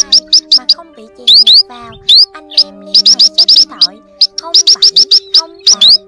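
Calls of young sắc ô, bít and bích songbirds, played as a trapping lure: quick runs of short, high chirps, several a second, broken by single rising slurred notes. Low steady tones hum underneath.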